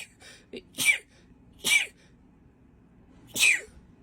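A woman's sneezing fit: three sharp sneezes in quick succession, about a second in, just under two seconds in and again about three and a half seconds in, with a couple of smaller bursts near the start.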